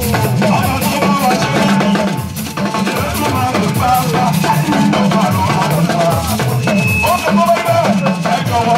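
Live amplified church music: a man singing through a microphone over a steady drum-kit and percussion beat.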